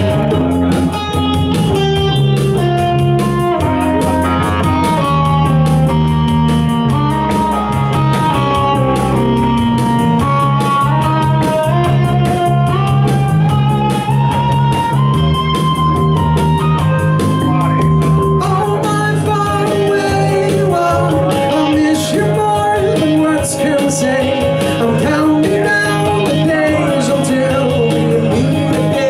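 Live instrumental passage of a pop-rock song: a bass line and drum machine under a melodic lead line, with no lyrics sung.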